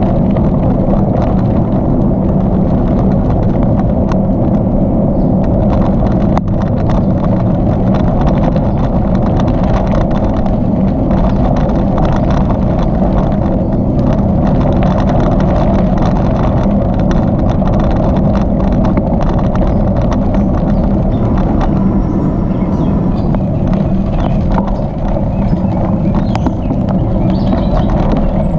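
Steady wind rushing over the microphone of a moving bicycle, with the low rumble of the tyres rolling on the trail underneath.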